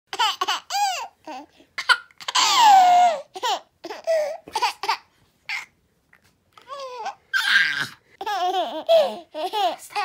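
A baby giggling and laughing in short, high-pitched bursts. A longer squeal falls in pitch just after two seconds in, and there is a short pause in the middle.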